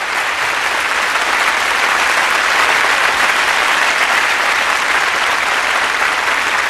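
Crowd applause, swelling over the first couple of seconds and then holding steady.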